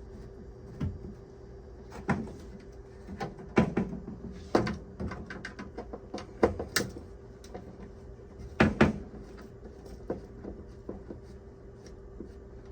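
Irregular knocks and clacks from hands-on work on a truck camper's roof vent, loudest in a cluster a little after the middle, over a steady low hum.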